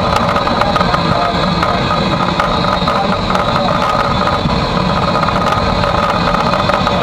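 Footplate noise inside the cab of A1 Pacific steam locomotive 60163 Tornado: a loud, steady mix of low rumble and hiss, with a few steady tones running through it.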